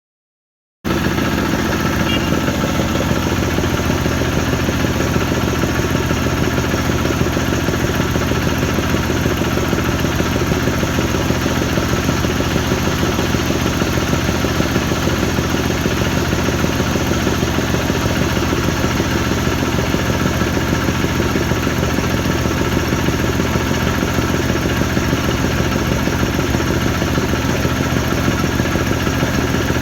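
A 10-horsepower diesel engine driving an air compressor with a 500-litre tank, running at a steady speed. The sound starts abruptly about a second in, then holds unchanged.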